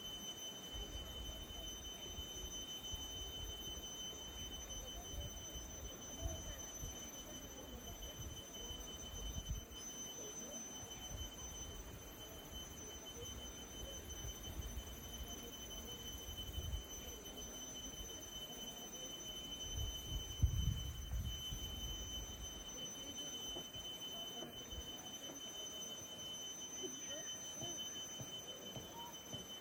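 Quiet rural outdoor ambience: a steady high thin tone held throughout, with low rumbles coming and going, strongest about two-thirds of the way through.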